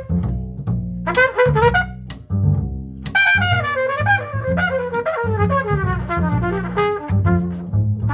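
Jazz trumpet improvising a blues solo over a plucked double bass walking line and guitar comping. The trumpet plays short phrases, then a long falling run about three seconds in.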